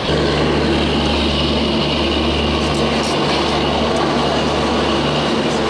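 WDM-3A diesel locomotive's engine running with a steady low drone.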